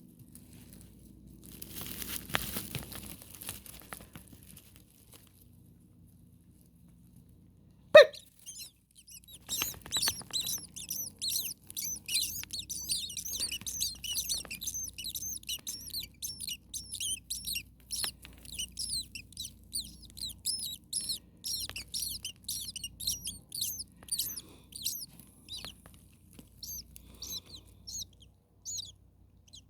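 Starlings giving rapid, high-pitched chirps, three or four a second, that thin out near the end. A single sharp click about eight seconds in is the loudest sound, and there is a short rustle near the start.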